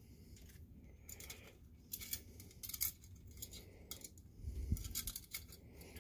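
Faint, scattered clicks and scrapes of a projector lamp module's metal bracket, bulb and lead wires being handled by hand, with a duller low bump in the second half.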